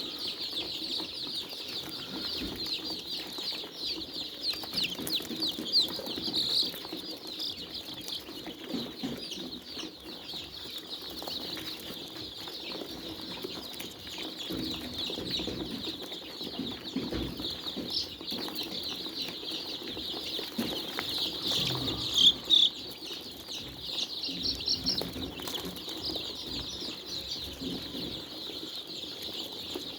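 A flock of chickens in a poultry house calling all together: a dense, unbroken chorus of high cheeps with lower clucking underneath. A couple of calls stand out louder about two-thirds of the way through.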